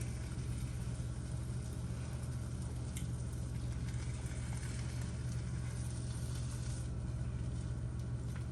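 Turkey bacon sizzling in a frying pan: a steady, even crackling hiss with a few faint pops, over a constant low hum.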